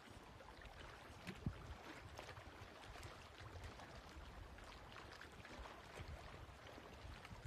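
Faint lapping of small waves on a lakeshore, with many small ticks and splashes over a low wind rumble. One soft thump comes about a second and a half in.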